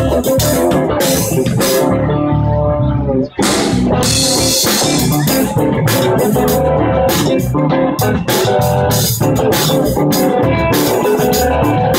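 Live band jamming: guitar, bass and drum kit playing together, with a brief break about three seconds in.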